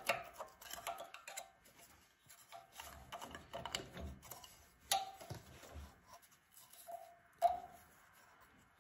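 Faint, scattered light clicks and taps of small engine parts being handled as the old carburetor gaskets are pulled off the generator's intake, with two sharper taps in the second half.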